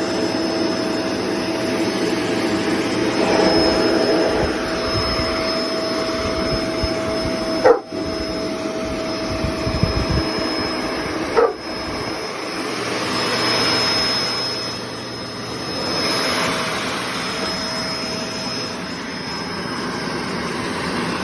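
Kenmore BU4018 two-motor bagged upright vacuum running with a steady motor whine. The sound breaks off briefly twice, about a third and about halfway through.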